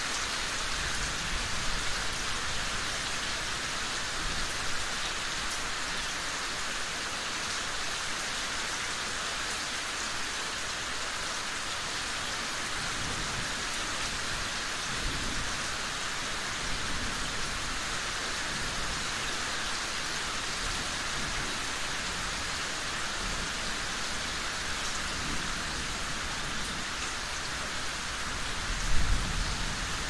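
Steady rain falling, an even hiss of many drops on a surface. Occasional low rumbles swell underneath, the strongest about a second before the end.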